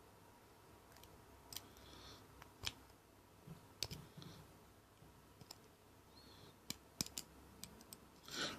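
Faint, irregular metallic clicks and scrapes of a dimple pick and tension tool working the pins of a six-pin Master dimple padlock. Louder handling noise starts near the end.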